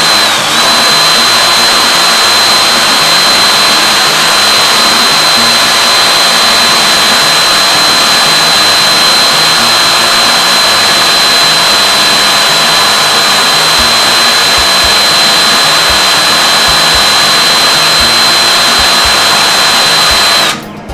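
High-speed wire wheel running steadily, brushing green corrosion off the strands of a stripped copper wire to bring it back to bare copper. A constant high whine over a loud hiss, which cuts off about half a second before the end.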